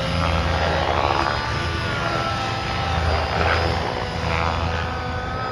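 Radio-controlled model helicopter in flight: a steady low rotor hum that swells and eases a few times, with a faint wavering whine above it.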